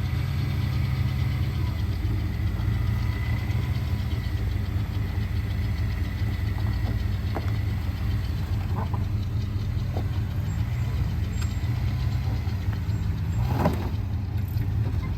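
Steady low rumble of a running motor vehicle, with a faint steady whine, a few light ticks, and a short louder noise near the end.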